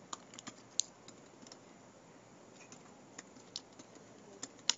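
Computer keyboard being typed on: a slow, irregular run of faint key clicks, about a dozen over the few seconds.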